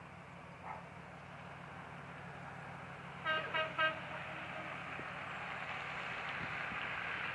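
Three short horn toots in quick succession, about three seconds in, over a steady low hum and a hiss that grows louder toward the end.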